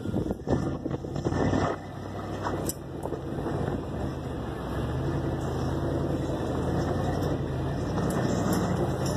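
Off-road vehicle engine running at low speed while crawling, with a few knocks and clatters in the first couple of seconds.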